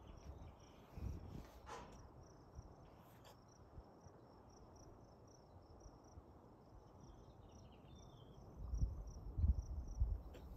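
Insects chirping steadily in a fast, even pulse. Low thumps and rumbles come in near the end.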